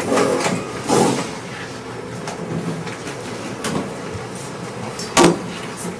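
Students moving about and changing places in a room: footsteps, shuffling and scattered knocks, with one sharp knock about five seconds in.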